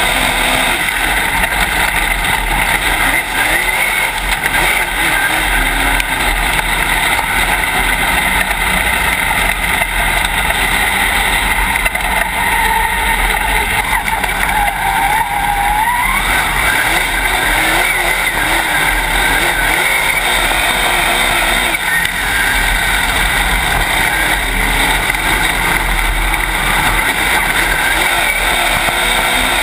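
Dirt late model race car's V8 engine running hard at racing speed, heard from inside the cockpit, loud and steady under the mix of engine and road noise. The engine pitch dips and then climbs sharply about halfway through.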